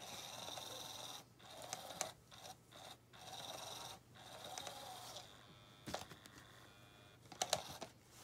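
A SmartyKat Hot Pursuit cat toy's small electric motor whirring as it drives its wand around under the nylon cover, with the fabric scraping and rustling. It stops and starts several times and runs quieter from about five seconds in. A few sharp clicks come near the end.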